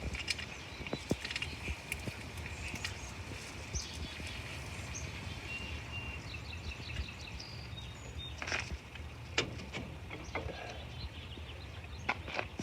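Scattered clicks and knocks as the parts of a metal hitch-mounted bike rack are handled and fitted, with the sharpest knocks about eight and nine seconds in. Behind them is outdoor ambience: a steady high-pitched hum and a few short bird chirps.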